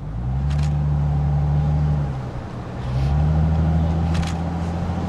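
Car engine running at low speed and rising in pitch as it pulls away, easing off about two seconds in, then picking up again as in a gear change.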